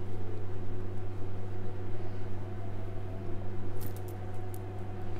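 Steady low electrical hum with a few faint higher tones above it, and a few soft clicks a little before the end.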